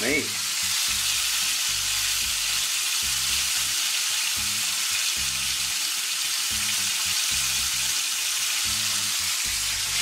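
Hamburger patties frying in hot grease in a cast-iron skillet, a steady even sizzle.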